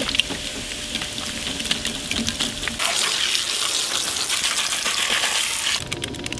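Coca-Cola poured from a plastic bottle over rusty cast iron in a plastic bin, fizzing and foaming with a steady hiss and small splashes. The hiss grows louder about three seconds in and stops abruptly near the end.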